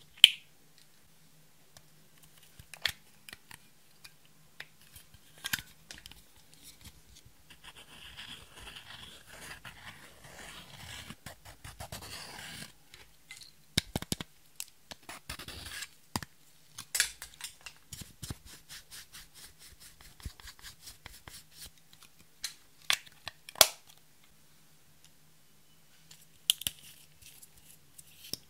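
Pressed makeup being crushed and handled over a glass dish: scattered sharp clicks and taps of plastic cases and pans. Around the middle comes a few seconds of steady scraping and crumbling as pressed powder is broken up. The loudest click comes right at the start.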